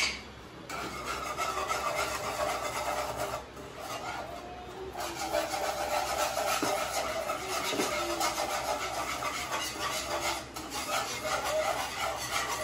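Wire balloon whisk scraping and rubbing fast against a nonstick frying pan, whisking thick white sauce of butter, flour and milk. A single knock comes at the very start, and the scraping stops for about a second and a half around three seconds in, then carries on steadily.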